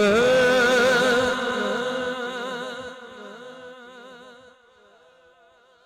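A man singing a line of a Punjabi manqabat, ending on one long held note with a wavering vibrato that fades away over about four seconds to near silence.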